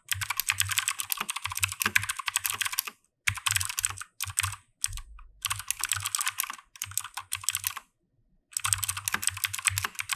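Fast typing on a Keychron K2 V2 mechanical keyboard with clicky blue switches: a rapid, dense run of key clicks, broken by a few brief pauses, the longest about eight seconds in.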